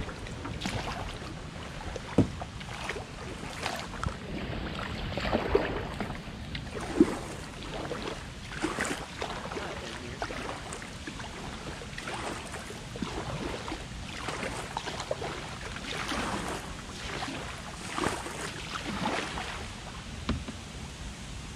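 Kayak being paddled: repeated paddle strokes swishing through the water about every second or two, with a few sharp knocks early on of the paddle or gear against the hull.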